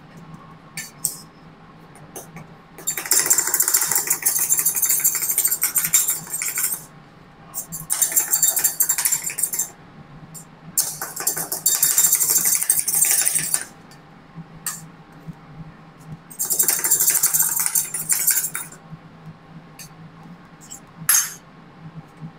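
Two metal spatulas rapidly chopping and scraping ice cream mix on a frozen steel cold plate while making rolled ice cream. The metallic clatter comes in four bursts with short pauses between them, then one sharp clink near the end.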